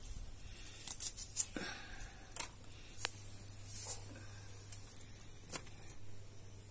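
Scattered light clicks and scrapes of hands and utensils at food preparation, over a low steady hum.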